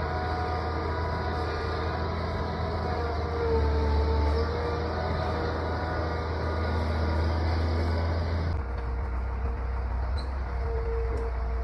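Excavator's diesel engine running steadily, a low hum with a faint whine above it. About eight and a half seconds in the sound changes abruptly to a slightly different engine sound.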